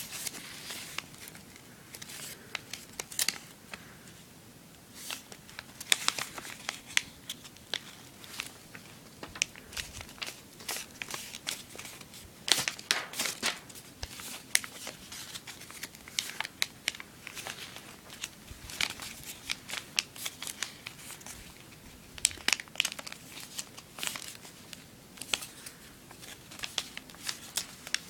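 A sheet of origami paper being folded and creased by hand, with irregular crinkling, rustling and short sharp crackles as folds are pressed.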